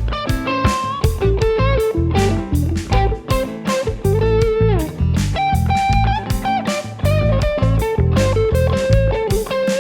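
Electric guitar lead from an Xotic XSC-2 through a Milkman Sound Dairy Air amp, playing single notes with string bends and held notes over a backing track of drums and bass.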